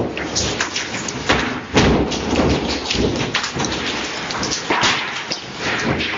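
Apartment building shaking in a strong earthquake: a continuous rumble and rattle with many knocks and thuds as chunks of ceiling plaster fall onto a hallway floor and a tall cabinet and its door sway and knock.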